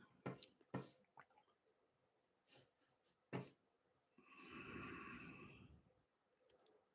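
Near silence, with a few faint clicks in the first second and again about three seconds in, then one soft breath close to the microphone lasting about a second.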